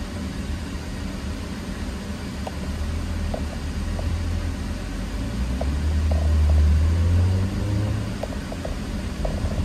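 Cabin sound of a Porsche Macan's turbocharged EA888 four-cylinder under way. A low engine drone swells about halfway through, peaks, then eases off, with a few faint exhaust crackles.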